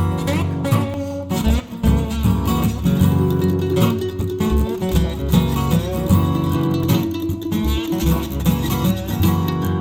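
Music led by plucked guitar, over a low bass part.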